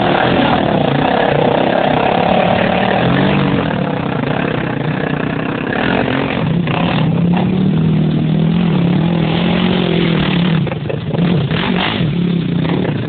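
Quad bike engine revving up and down as it rides through a large muddy puddle; the engine's pitch rises and falls again and again.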